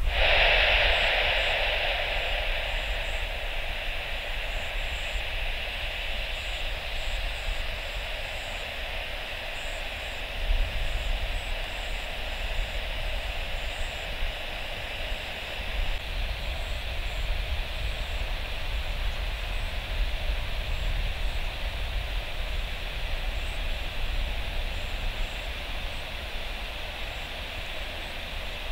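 Boeing 737 jet airliner engines, a steady rushing noise that is loudest at first and eases over several seconds before holding level.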